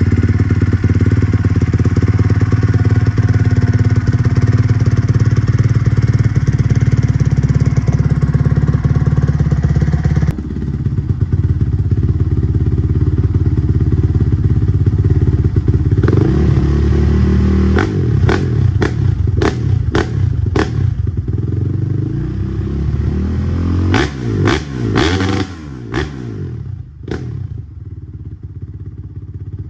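Honda CRF450R single-cylinder four-stroke dirt bike engine through a Yoshimura RS-9T exhaust, running loud and steady, then dropping back about ten seconds in. From around eighteen seconds it gives a run of quick, sharp throttle blips, with a second cluster a few seconds later. It then settles back to idle near the end.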